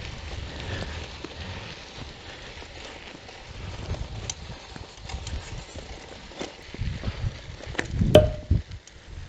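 A bicycle riding over a rough dirt road: scattered clicks and rattles over a low rumble of wind on the microphone, with one loud jolt about eight seconds in.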